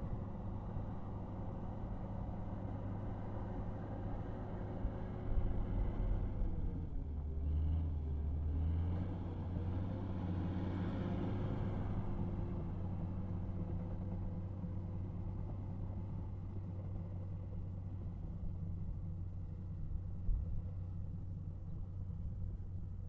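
Komatsu D65P bulldozer's diesel engine running steadily. About six seconds in, its pitch sags for a couple of seconds and then comes back up. There is a clunk about five seconds in and another near the end.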